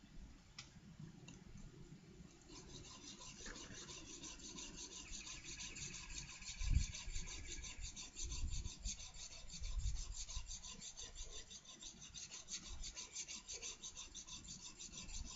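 Block plane blade being honed freehand on the coarse 400 side of a diamond plate: steel scraping over the plate in quick, even back-and-forth strokes that start about two and a half seconds in. A couple of low thumps sound midway.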